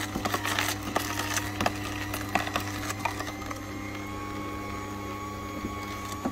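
Aicok horizontal slow (masticating) juicer running with a steady motor hum while its auger crushes a carrot fed down the chute, giving irregular cracking and snapping that thins out after about three seconds.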